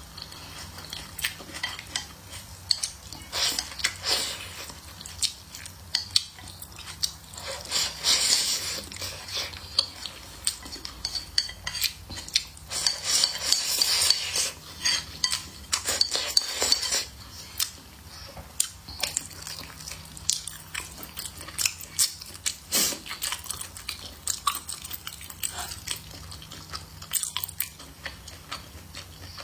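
Close-miked eating: utensils clicking against dishes and bowls, mixed with chewing and crunching of food.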